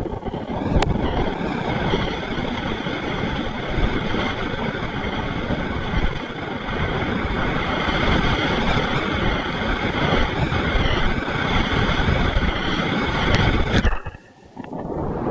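River rapids rushing and churning, with wind buffeting the microphone. The sound cuts out briefly near the end, then returns.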